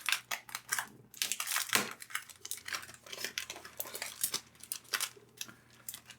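Packaging being torn open and crinkled by hand: a run of irregular rustles and crackles, busiest about one and a half to two seconds in.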